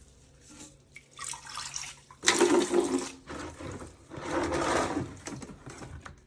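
Water being sponged out of a toilet tank and wrung out into a bucket: several bursts of splashing and trickling, the loudest about two seconds in.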